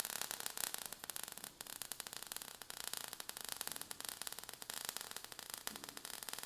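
Faint crackling sound effect of falling sparks: a steady hiss of fine, rapid clicks.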